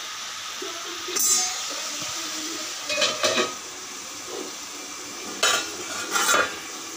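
Aluminium pot lids clanking and clinking against the pans as they are lifted off and set down, about four times, over a steady faint sizzle of food frying.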